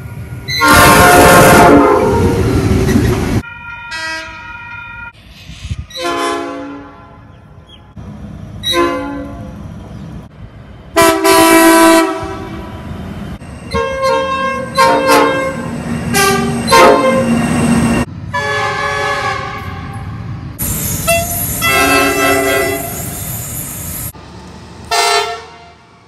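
Diesel freight locomotive air horns sounding a string of about ten blasts, some long and some short, the loudest near the start and around the middle.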